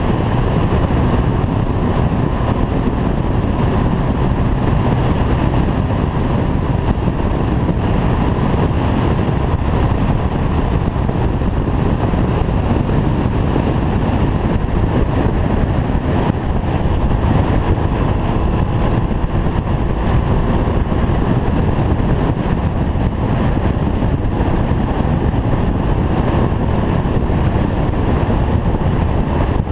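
Motorcycle cruising at steady road speed, its engine running under heavy wind noise on the microphone.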